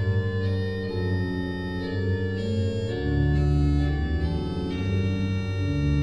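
Background music of slow, sustained organ chords over a deep bass, the chords changing about once a second.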